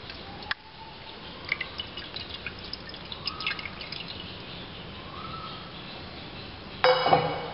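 Milk pouring into a nonstick frying pan and tailing off into scattered drips and small ticks. A sharp, louder knock comes near the end.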